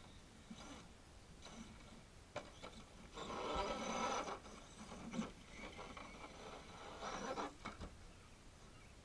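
Radio-controlled rock crawler's electric motor and gears whirring in bursts as it drives up a dirt slope. The loudest burst comes about three to four seconds in, with a shorter one near the end.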